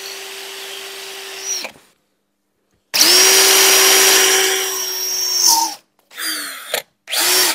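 Battery drill in non-hammer drilling mode boring into a wall tile with a tile hole-cutter bit. It runs steadily, stops about two seconds in, starts again a second later and runs louder for nearly three seconds before winding down, then gives two short trigger bursts near the end.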